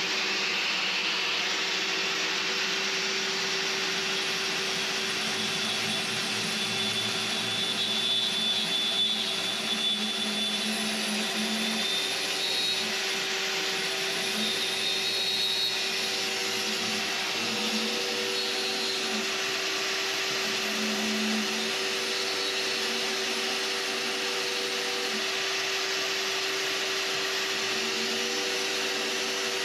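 Corded handheld right-angle grinder running steadily, its cylindrical sanding head working along the sink cutout edge of a concrete countertop.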